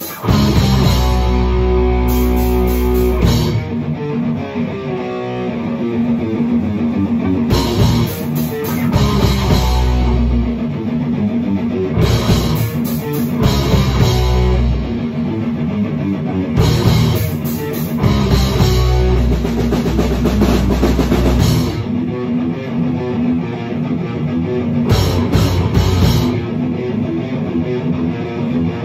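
Heavy metal music: guitar riffing over bass and a drum kit, with the cymbals and heavy low end dropping out and coming back in sections.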